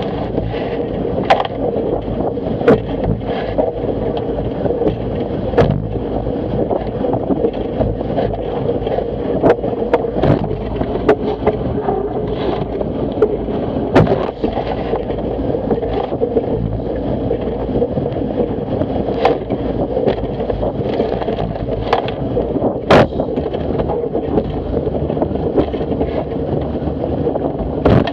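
Water rushing and spraying along a Fireball dinghy's hull as it sails at about eight knots through chop, with wind buffeting the microphone. Sharp knocks and slaps come every second or two, the loudest about 23 seconds in.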